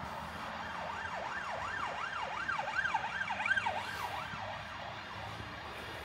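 Emergency vehicle siren in a fast yelp, its pitch sweeping up and down about three times a second. It grows louder toward the middle and fades out a little before the end.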